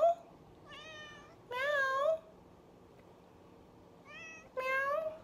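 Domestic cat meowing repeatedly with rising calls. Twice a short, softer meow is followed about half a second later by a longer, louder one.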